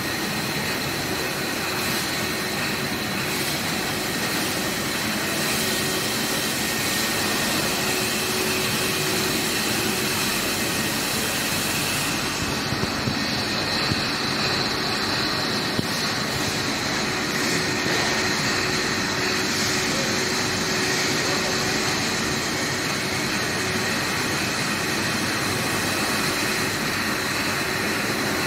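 Brewery bottle conveyor running: a stainless steel slat-chain line, driven by Danfoss OneGearDrive motors, carrying rows of glass bottles, a steady mechanical din with a thin high-pitched whine and a few light knocks in the middle.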